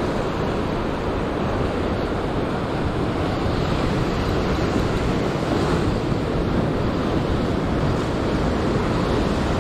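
Heavy sea surf breaking and washing over shore rocks, a loud, steady rush of white water.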